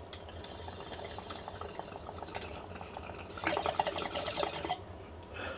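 Water bubbling in a glass beaker bong with an ice pinch as smoke is pulled through its diffuser perc. The bubbling is steady at first, then louder and denser for about a second and a half midway through.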